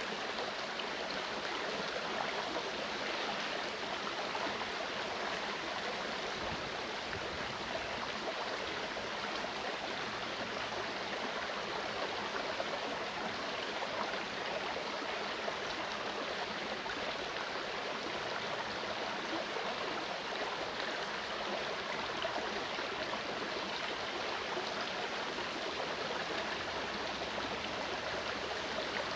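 Clear mountain stream flowing, a steady, unbroken rush of water.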